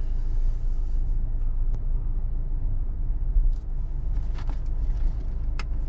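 Car running at low speed as it pulls slowly away, a steady low rumble heard from inside the cabin, with a few faint clicks.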